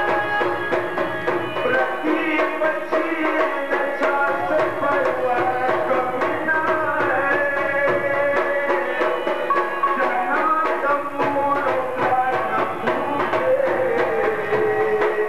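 Folk dance music: a steady tabla-style hand-drum beat under a sustained, gliding melody.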